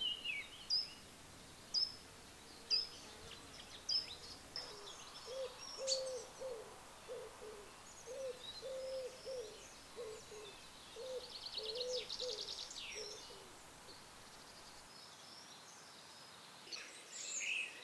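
Wild birdsong: scattered short high chirps and a fast trill from small songbirds. A run of about a dozen low, evenly repeated notes, roughly two a second, runs through the middle and stops near two-thirds of the way in.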